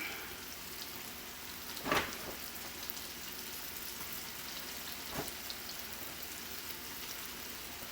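Flour-coated shrimp deep-frying in hot oil, a steady sizzle. A sharp tap about two seconds in and a fainter one around five seconds.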